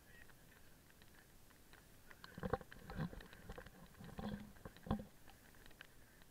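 Four dull thumps and knocks at irregular spacing, starting about two and a half seconds in, over faint background noise.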